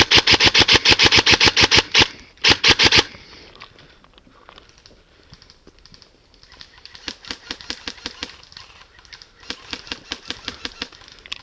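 Airsoft gun firing a rapid string of shots for about two seconds, then a short burst half a second later. From about six and a half seconds on, fainter, more distant bursts of airsoft fire follow.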